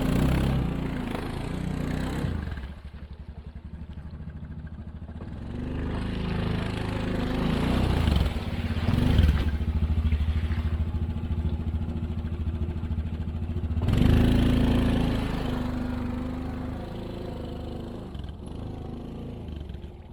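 A small vehicle's engine running while being driven, revving up and easing off several times. It is loudest at the start, about 9 seconds in and about 14 seconds in, and fades toward the end.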